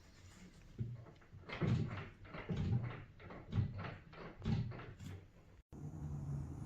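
Doors and drawer of a particleboard microwave cart being worked, with a series of about ten wooden knocks and bangs, some in quick pairs, over about four seconds.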